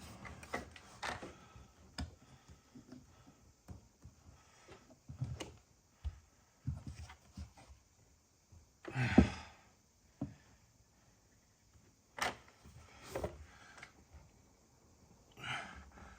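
Scattered knocks and handling clunks, with a louder breath-like sigh about nine seconds in and another near the end.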